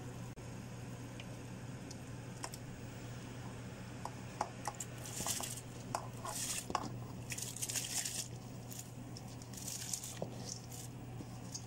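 Pre-soaked rice being tipped into a pot of boiling water, with irregular splashing and hissing bursts and small clicks from about four seconds in until near the end, over a steady low hum.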